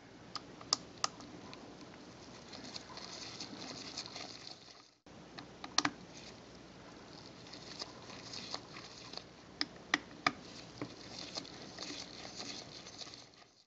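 Double-aught Phillips screwdriver turning out the tiny screws on the bottom of a compact digital camera: faint scratchy turning with scattered small sharp clicks of the metal tip in the screw heads. The sound cuts out briefly about five seconds in.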